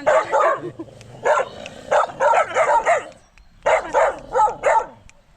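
Several dogs barking in rapid, overlapping bursts at a person, in three runs with short pauses between.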